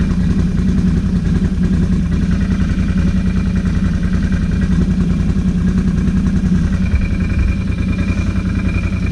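ATV engine running steadily at an even speed, heard close up from the rider's seat, with no revving.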